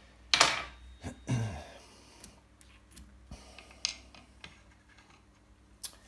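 Metal clicks and scrapes as a fork is worked against the steel pins of a hand fork bending tool: two louder scrapes in the first second and a half, then scattered light clicks.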